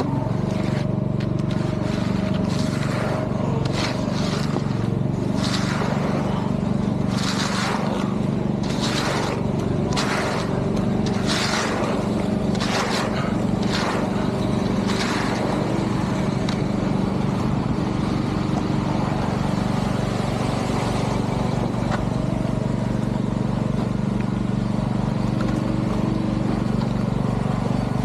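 Heavy engine running steadily, with a series of short scraping strokes about once a second through the first half, after which the engine runs on alone.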